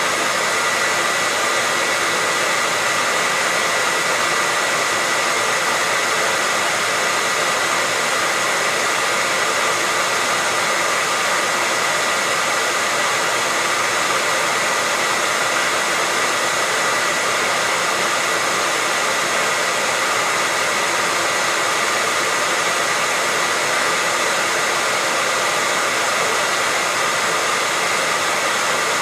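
Hair dryer running continuously, a steady even rush of air with a faint whine held at one pitch.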